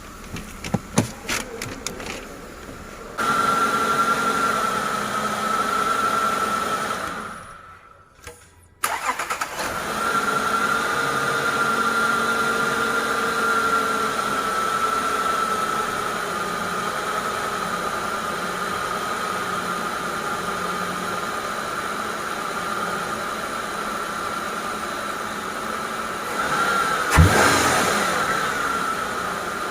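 Toyota Aurion's 2GR-FE 3.5 L V6 cranked and started about three seconds in, dying away a few seconds later, then restarted and idling steadily with a constant whine over the engine note. The whine is the noise under diagnosis, suspected to come from a worn idler or tensioner pulley bearing. Near the end there is a sharp knock and a brief rise in the engine sound.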